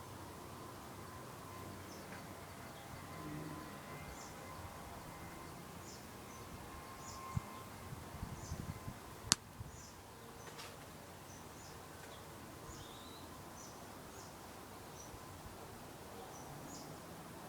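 Quiet outdoor ambience with faint, short high bird chirps scattered throughout, and a couple of sharp clicks with a brief scuffle about halfway through.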